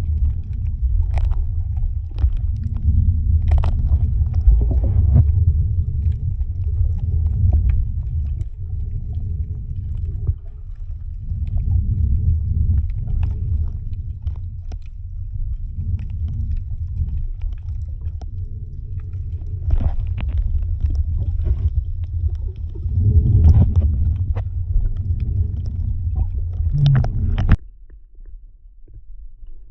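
Low, uneven rumble of a moving boat, with scattered knocks and clicks; it cuts off abruptly near the end.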